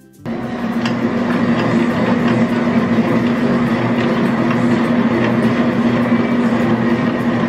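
Large commercial planetary stand mixer comes on abruptly and runs with a loud, steady motor-and-gear hum, its spiral dough hook turning through a bowl of slime mixture.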